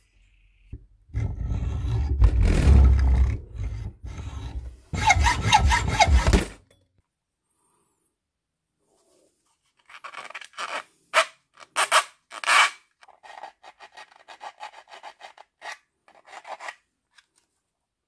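A hand tool cutting at the metal shaft of a rotary encoder clamped in a vise, in two loud spells of scraping strokes. After a pause, a run of small sharp clicks and scrapes comes from handling the radio and its knob.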